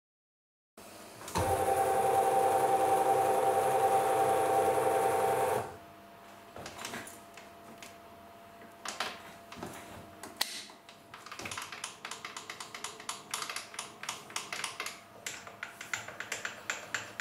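A machine motor runs with a steady hum for about four seconds and stops abruptly. It is followed by scattered light metallic clicks that become a fast run of ticks near the end, from machine set-up work at a bench milling machine and its vise.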